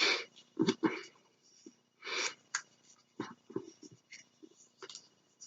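Die-cut paper being handled and folded: a series of short, irregular rustles and scrapes of paper.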